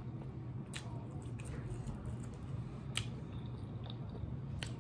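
Close-up mouth sounds of someone eating sauce-covered chicken wings: quiet chewing with three sharp wet smacks, about a second in, midway and near the end, over a low steady hum.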